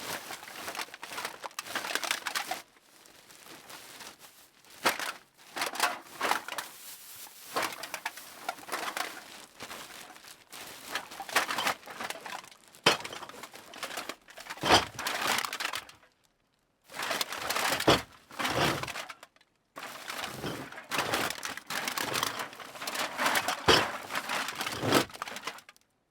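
Cans being put into a bag: the bag rustles and crinkles while the cans knock and clink against each other in irregular bursts, with two short pauses in the second half, stopping near the end.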